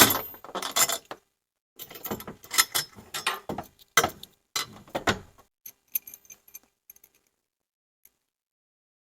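Metal tools and bolts clinking and clanking in irregular knocks and rattles while a golf cart roof strut is unbolted. The sounds die away about two-thirds of the way through.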